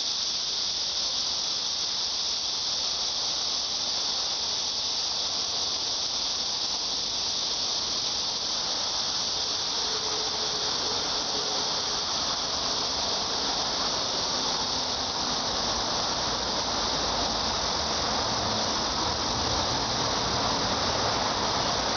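Cicadas buzzing in a steady, unbroken high-pitched chorus, with a low rumble rising beneath it in the second half.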